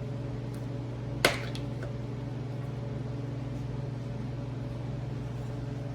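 A plastic plug prised out of a car door's inner panel with a plastic trim tool, giving a single sharp click about a second in, over a steady low hum.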